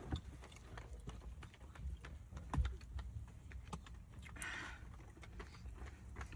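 Eating sounds: irregular small clicks and taps of chewing and utensils, with a short hissing burst about four and a half seconds in.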